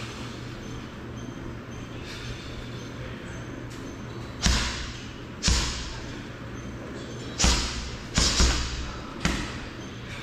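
Gloved punches landing on a hanging heavy bag: six sharp smacks at irregular spacing over the second half, each with a short ringing tail. A steady low hum sits underneath.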